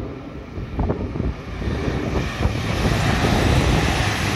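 Chizu Express HOT7000 "Super Hakuto" diesel express railcar passing through the station at speed. Its engines and wheels on the rails grow steadily louder as it nears, with a few knocks about a second in.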